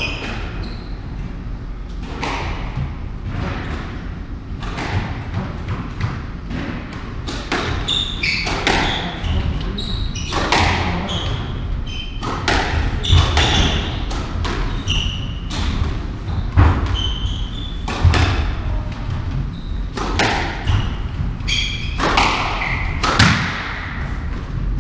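Squash ball struck by racquets and smacking off the court walls in a rally, a hit roughly every second, each ringing briefly in the court, with shoes squeaking on the wooden floor between shots.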